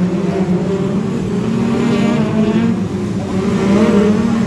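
Several BriSCA F2 stock car engines running together as the cars lap the oval, with a steady drone whose pitch rises and falls as they rev and ease off.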